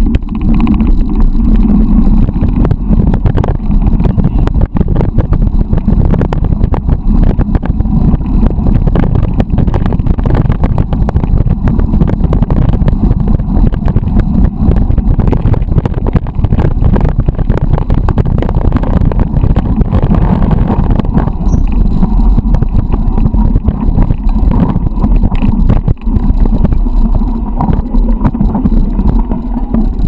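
Mountain bike riding over a gravel dirt trail, heard from a handlebar-mounted camera: a loud, steady low rumble of wind and vibration. Many small knocks and rattles from the rough surface run through it.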